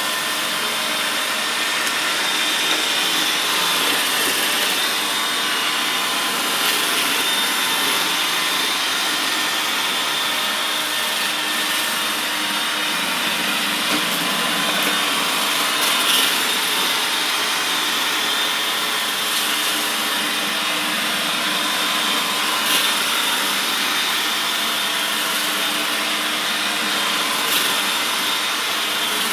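iRobot Roomba 880 robot vacuum running steadily, its vacuum motor and brushes giving an even whirring noise with a faint steady whine, broken by a few brief ticks.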